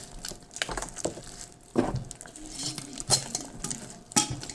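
Homemade slime being squeezed and kneaded by hand, making irregular clicks and squelches.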